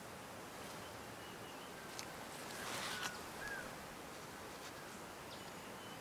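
Forest ambience: a steady hiss with a few faint, short, thin high bird notes. A brief swell of noise about two and a half seconds in ends in a sharp click just after three seconds.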